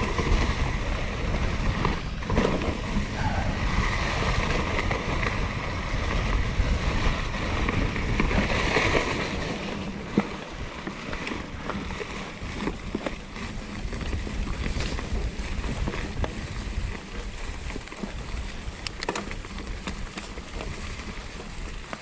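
Wind rushing over the microphone and tyre rumble from a mountain bike ridden along a rough trail, with scattered clanks and ticks from the bike. The rushing eases about halfway through.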